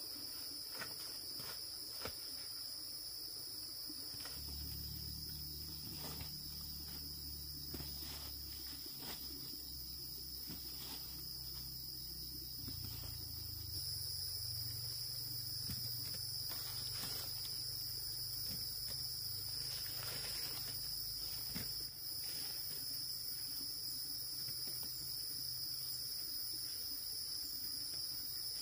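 Steady high-pitched chorus of insects, running without a break, with scattered light clicks and rustles. A low hum sits under it from a few seconds in until about two-thirds of the way through.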